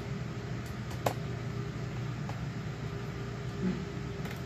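A small screwdriver driving screws into a laptop's bottom cover: a few light, separate ticks over a steady background hum.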